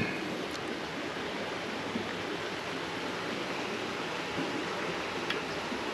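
Creek water rushing steadily, an even hiss of flowing water with a faint tick or two near the start.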